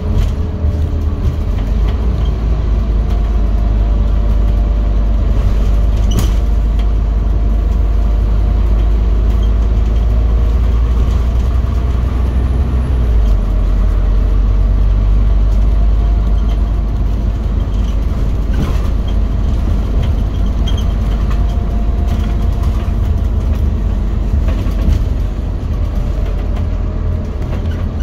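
Scania OmniCity single-deck bus under way, heard from inside the passenger saloon: a deep, steady rumble with the engine note rising and falling as it drives. A couple of sharp knocks stand out, about six seconds in and again past the middle.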